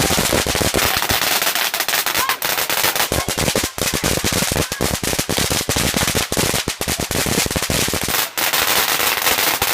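Fireworks going off in a rapid, unbroken run of sharp bangs and crackles, many reports a second.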